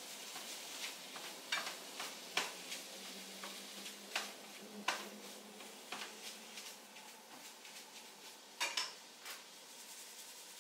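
Food sizzling in a frying pan, with a spatula scraping and knocking against the pan at irregular intervals, the loudest knocks a quick pair near the end.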